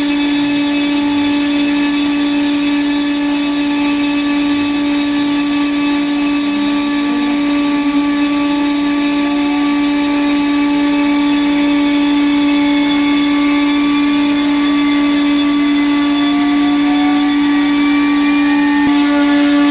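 CNC router spindle running with a steady, high-pitched whine as its bit cuts grooves into an MDF sheet. Faint rising whines come in during the second half.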